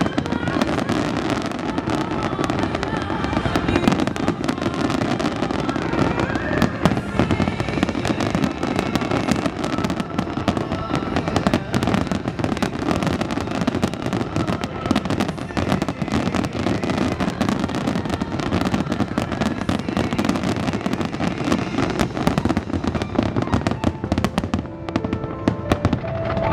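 Fireworks display in full barrage: a dense, continuous run of bangs and crackling bursts, many a second, with music playing underneath.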